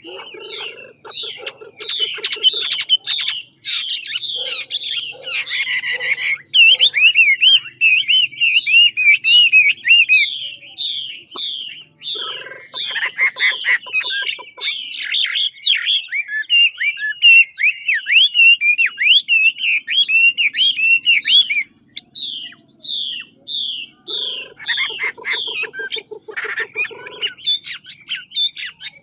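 Chinese hwamei singing a long, continuous song of rapid, varied whistled notes. Twice it breaks into stretches of fast rasping rattles, and it pauses briefly a little past two-thirds of the way in.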